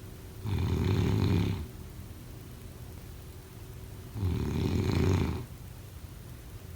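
Snoring: two snores about four seconds apart, each lasting just over a second.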